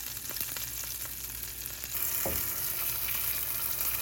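Ribeye steak sizzling in hot oil in a cast iron skillet. The sizzle gets louder about halfway through, with one brief low knock just after.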